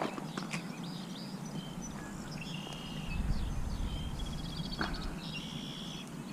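Small birds chirping, with short calls and a quick trill, over a steady low hum; a couple of sharp clicks near the start and a low rumble in the middle.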